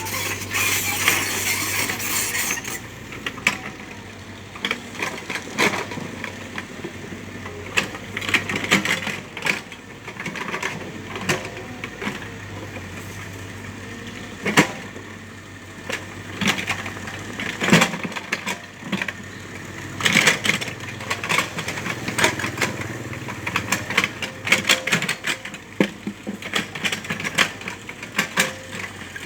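Small excavator's engine running steadily. Its bucket scrapes and knocks against soil and stones in frequent sharp clanks while it levels the ground. There is a burst of hissing in the first couple of seconds.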